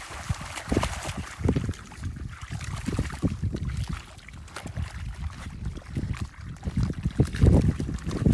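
Muddy water splashing and sloshing irregularly as a dog and a warthog scuffle in a shallow wallow, louder near the end.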